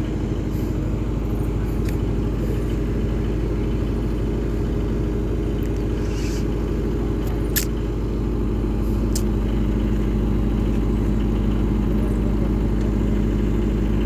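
Engine running steadily at idle: an even, unchanging drone, with a few faint high ticks in the middle.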